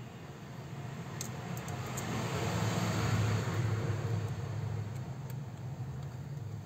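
Engine noise of a vehicle passing by, swelling to a peak about three seconds in and then fading away.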